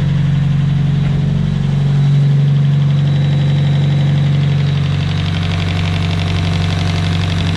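Nissan SR20DET turbocharged inline-four idling steadily just after start-up, its idle swelling slightly about two seconds in and then settling. A light, fast ticking rides on top, which the owner takes for the injectors firing, with no lifter clatter since the bad lifter was replaced.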